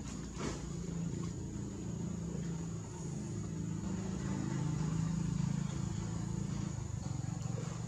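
A steady low engine-like hum, as of a motor vehicle running, that swells through the middle and eases off near the end, with a single click just after the start.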